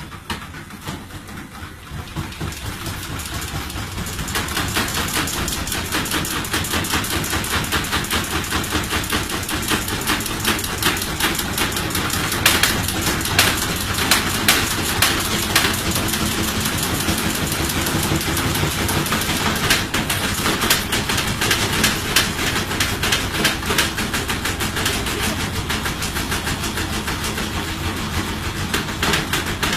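Washing machine running with a loud, rapid clattering and knocking, like a train on rails, that builds up over the first few seconds and then holds steady: the racket of a machine in poor condition.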